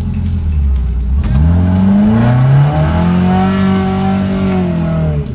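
Off-road 4x4 engine revving hard under load, climbing a steep track. It settles from a low steady note into a rising rev about a second in, then holds high and eases off slightly near the end.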